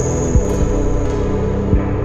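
Ambient background music: steady held synth tones over a slow low beat, one thump about every second and a half.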